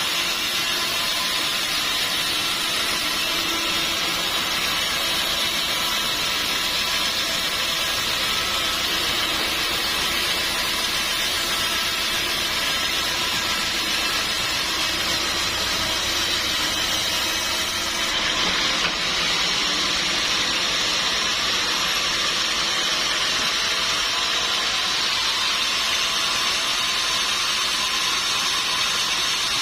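Sawmill saw running steadily through teak wood, a continuous hissing machine noise without a break.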